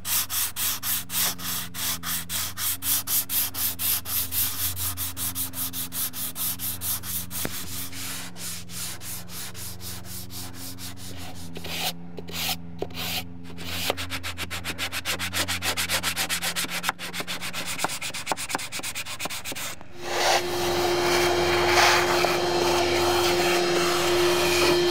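Hand sanding of cured Bondo body filler with 120-grit sandpaper wrapped on a wooden block: quick back-and-forth rubbing strokes, about three a second, with a short pause about twelve seconds in. About five seconds before the end the strokes give way to a steadier hiss with a steady hum.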